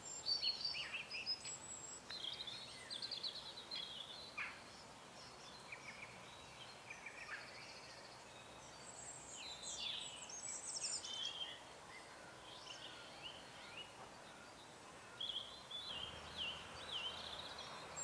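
Faint birdsong: many short chirps and trills from small wild birds, coming in clusters with quieter gaps in between, busiest around the middle and again near the end.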